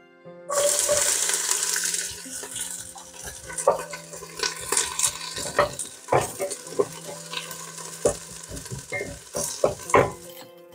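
Food sizzling in a hot pan. The sizzle starts suddenly about half a second in, loudest for the first second or so, followed by many sharp clicks and scrapes of utensils against the pan.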